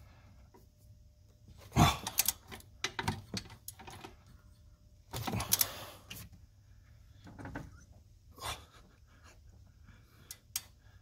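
Torque wrench ratcheting on turbo mounting bolts: a handful of sharp metal clicks and short rasping bursts, the loudest about two seconds in and another from about five to six seconds in.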